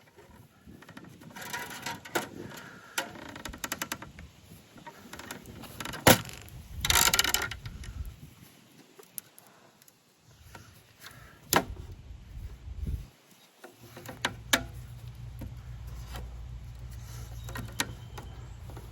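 Scattered sharp knocks, clicks and rattles of hands-on fence work on a wire brace at a wooden post. The loudest knock comes about 6 seconds in, followed by a short rattle. A steady low rumble sets in about 14 seconds in.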